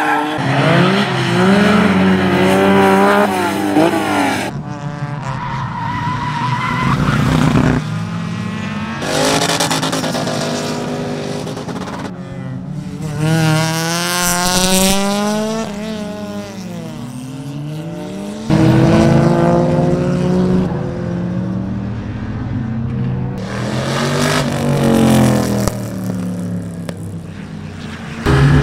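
A succession of track cars on a race circuit, joined by sudden cuts: engines revving hard, the pitch climbing through each gear and sliding down as they pass or lift off, with tyre squeal from a car drifting near the start.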